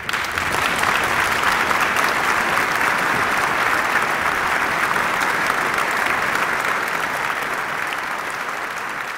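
Applause, starting suddenly and slowly fading.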